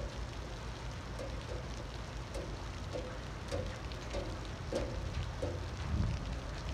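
Light rain falling: a steady hiss with faint scattered drop ticks over a low rumble.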